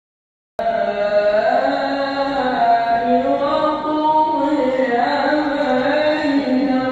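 A man's voice chanting melodically through a microphone and loudspeakers in a large hall, with long held notes that glide up and down, in the style of devotional recitation. It begins abruptly about half a second in.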